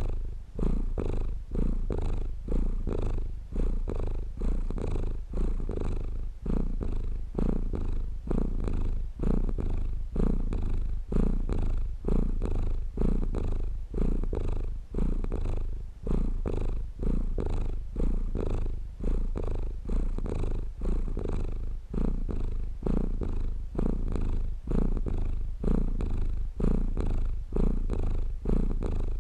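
A domestic cat purring steadily, a low rumble that swells and dips evenly with each breath in and out.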